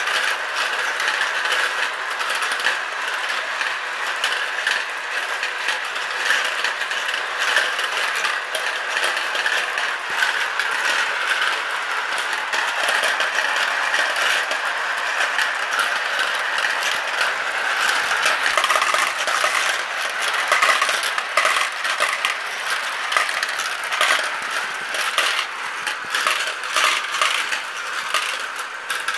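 Dozens of marbles rolling and spinning around the plastic funnel bowls of a toy marble run. They make a dense, continuous clatter of many small clicks as they knock together and drop from bowl to bowl.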